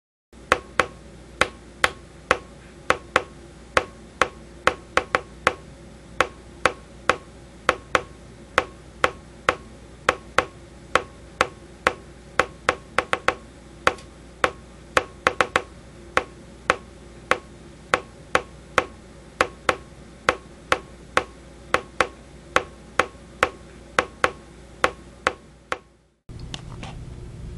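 A run of sharp ticks, close to two a second, over a steady low hum. They stop near the end, where a different, buzzier low hum takes over.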